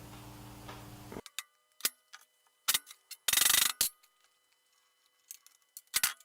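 A steady hum stops about a second in. Then come sparse metallic clicks and clinks of steel lathe tailstock parts and hand tools being handled, with one louder rasping scrape lasting about half a second near the middle.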